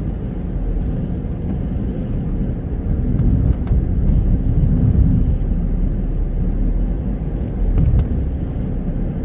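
Car driving, heard from inside: a steady low rumble of road and engine noise that swells about three seconds in and again near the end, with a few faint ticks.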